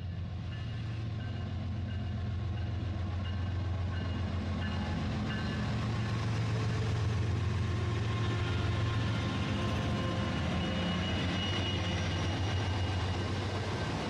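Toy train's small electric motor and gears running steadily with a low hum as the locomotive rolls along its plastic track, getting a little louder over the first half.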